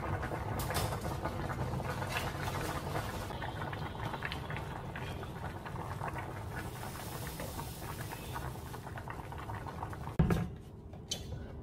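A pot of stew bubbling at a simmer, a dense patter of small pops, while it is stirred with a wooden spoon. About ten seconds in, a single loud knock of cookware set down on the stovetop.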